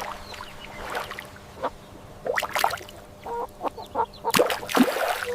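Waterfowl calling: a string of short, irregular calls coming thicker after about two seconds, over a faint steady hum.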